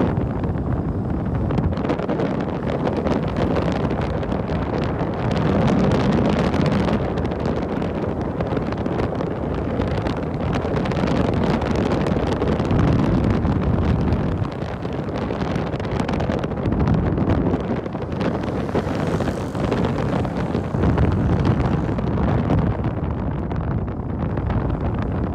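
Wind buffeting the microphone over the steady running and road noise of a moving vehicle. It is a loud, constant rumble that wavers in strength.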